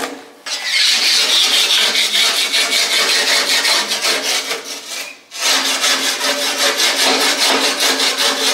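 A length of flat steel bar scraped rapidly back and forth inside a steam boiler's shell, breaking loose stubborn scale, with a steady ringing tone beneath the strokes. The scraping stops briefly about five seconds in, then starts again.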